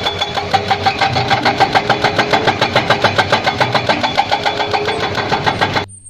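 Hydraulic breaker hammer on a Caterpillar 320D excavator pounding rock in rapid, even blows, roughly nine a second, over the excavator's running engine. It cuts off suddenly near the end.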